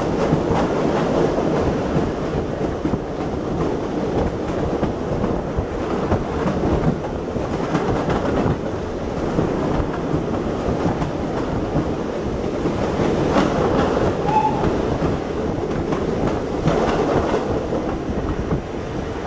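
A moving railway train heard on board: the steady rumble of wheels running on the rails, with a few knocks from the track.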